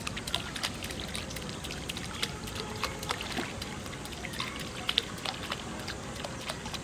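Water trickling and splashing, with many small irregular clicks and taps.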